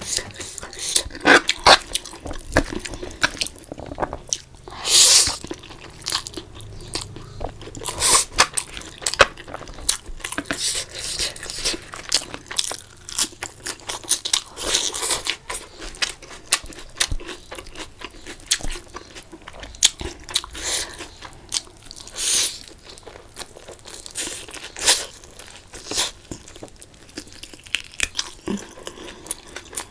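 Close-miked eating for a mukbang: irregular crunchy bites and chewing, with louder crunches every few seconds.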